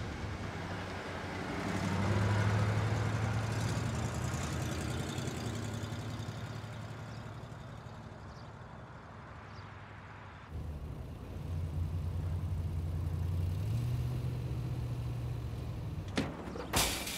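An old sedan's engine running as the car drives, a steady low hum that swells and fades and breaks off abruptly about ten seconds in before carrying on. Near the end, two sharp clicks of a car door opening.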